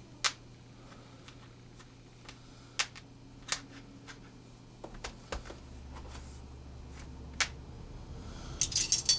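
Hands handling a neoprene gun cleaning mat: a few light clicks and taps spaced a second or so apart, then a quick flurry of them near the end, over a low steady hum.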